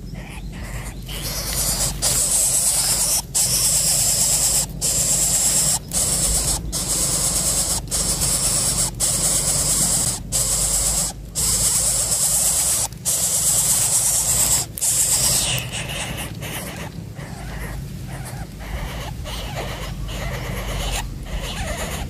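Nestling begging with a loud, high hissing call, broken by many short pauses, that stops about three quarters of the way through.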